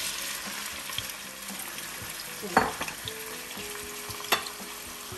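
Freshly sliced onions frying in hot oil in a stainless steel pan: a steady sizzling hiss, with two sharp knocks about a second and a half apart.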